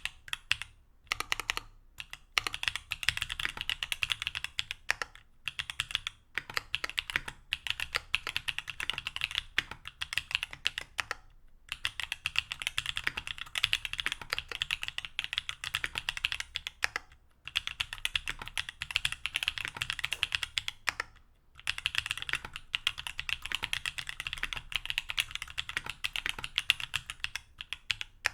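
Fast typing on a mechanical keyboard fitted with stock TTC Holy Panda tactile switches, an aluminium plate and GMK keycaps: quick runs of keystrokes broken by several brief pauses.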